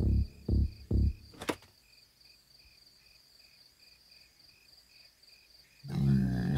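Crickets chirping steadily, about three chirps a second, as a night-time sound effect. A few low music notes die away in the first second, and a single sharp click comes about a second and a half in. Louder music and a voice start near the end.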